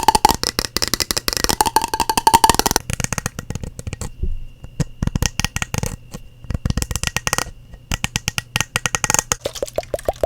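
Rapid tapping on objects for ASMR, many quick taps a second, with heavier low knocks in the middle. Near the end the taps turn into a quick run that rises in pitch.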